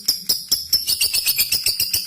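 Lovebird calling in sharp, high, evenly spaced chirps, about four a second, that quicken about halfway into a faster chatter of around eight a second. This is the long 'ngekek' trill that calls out a rival.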